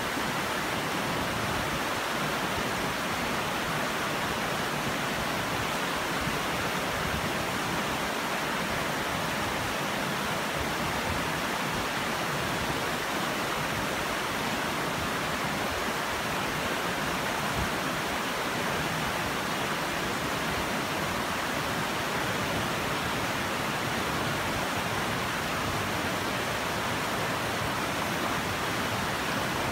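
Shallow rocky river rushing over stones and through small rapids: a steady, even rush of water.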